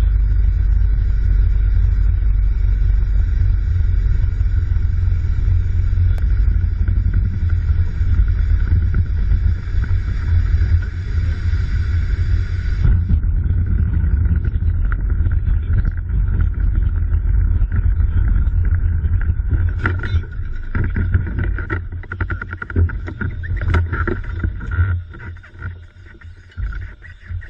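Loud steady rumble inside a small single-engine plane's cabin in flight. From about 20 seconds in, a run of knocks and rattles as the plane touches down and rolls over rough ground, dying away as it slows near the end.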